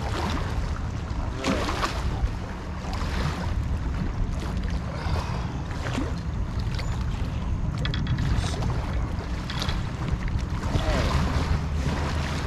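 Motorboat engine running steadily out on the river, a low hum, with wind on the microphone and small waves washing against the concrete bank.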